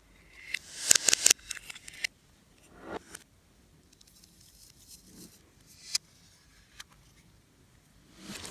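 Slime being handled, squished and pressed: a quick run of sharp crackling clicks about a second in, then scattered single clicks and soft squishes.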